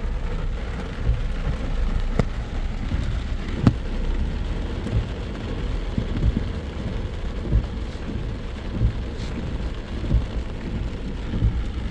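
Heavy rain falling on a moving car, over a steady low rumble of the car and road, with a few sharp taps.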